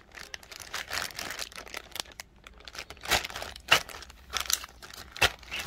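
Clear plastic bags crinkling and rustling as they are handled, with a few sharper crackles in the second half.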